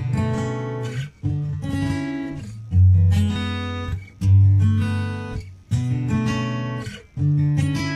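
Background music: strummed guitar chords, a new chord struck about every one and a half seconds and left to ring out.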